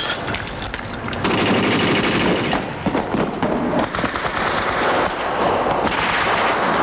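Sustained rapid gunfire: machine-gun bursts and shots overlapping in a continuous clatter, growing louder about a second in.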